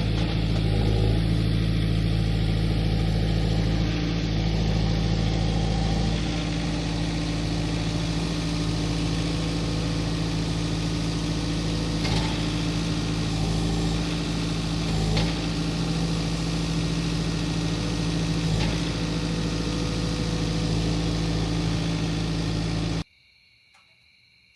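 John Deere 4044M compact tractor's diesel engine running steadily at a constant low speed, then stopping abruptly shortly before the end.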